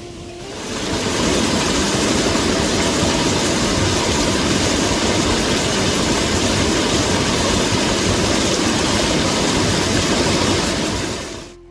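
Heavy monsoon rain pouring down as a loud, steady hiss that fades in about a second in and fades out near the end.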